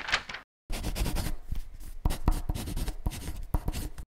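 A drawing tool scratching in strokes across paper, with a few sharp taps. It cuts off abruptly near the end.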